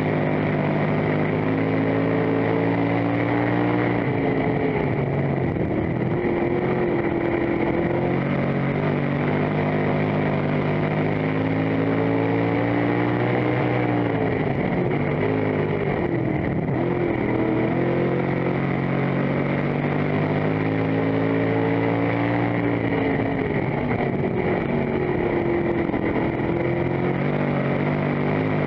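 Dirt-track stock car's engine heard from inside the cockpit, revving up on the straights and falling in pitch as the driver lifts for the turns, about every ten seconds, over steady road and wind noise.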